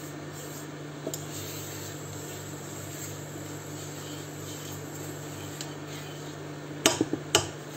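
Silicone spatula stirring dry spice powder in a nonstick frying pan, over a steady low hum, with a few sharp knocks about seven seconds in as the spatula strikes the pan.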